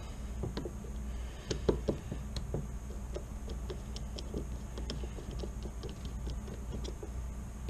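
Irregular light metal clicks and taps of a screwdriver and small steel parts against a Colt Detective Special revolver's frame as its side-plate screws are taken out. The loudest clicks come about a second and a half in, over a low steady hum.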